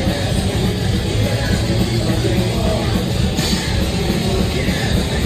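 Live rock band playing loud: electric guitar, drums and keyboard through the venue PA, heard from within the crowd.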